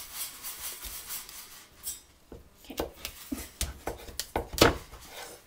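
Chef's knife cutting through a hard acorn squash on a wooden cutting board: a rasping scrape in the first two seconds, then several sharp knocks of the blade on the board, the loudest about four and a half seconds in.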